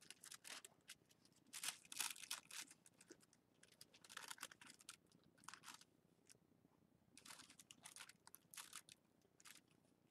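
Faint, irregular rustling and crinkling in short bursts from hands tying a string around a corner of a tissue-paper tetrahedron kite, the paper skin and string rubbing as the knot is worked.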